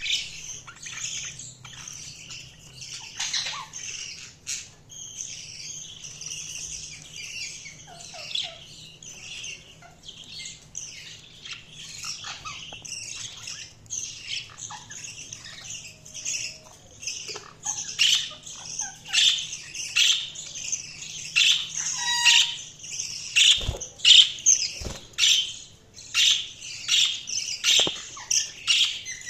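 A group of budgerigars chirping and warbling continuously, with short squawks mixed in. The chirping grows louder and busier past the halfway point.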